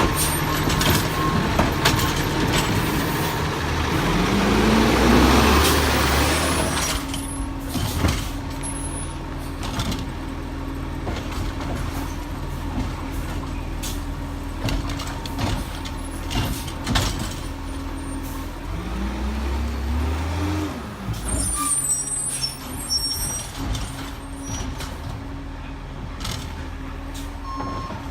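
Peterbilt 320 garbage truck with a Bridgeport Ranger body, its diesel engine running and revving up and back down twice, with short sharp air-brake hisses.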